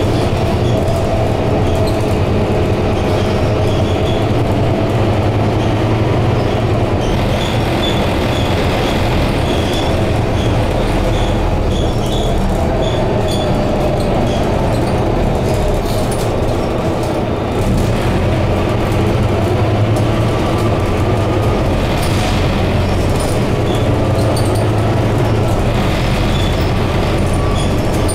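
Scania K230UB double-decker bus heard from inside while driving: its engine and road noise run steadily, with a faint whine that slowly slides in pitch. Scattered light high ticks sound over it.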